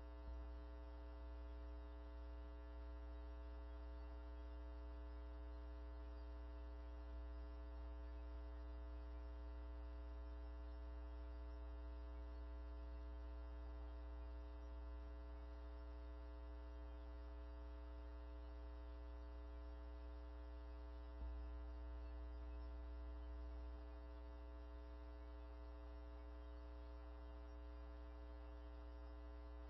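Steady electrical mains hum, a low buzz with a stack of higher steady tones above it, on an otherwise empty audio feed; it swells slightly for a few seconds about two-thirds of the way through.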